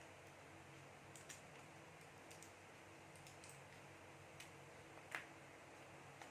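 Faint scattered clicks and taps from handling a smartphone and its small accessories, about eight in all, the loudest about five seconds in, over a low steady hum.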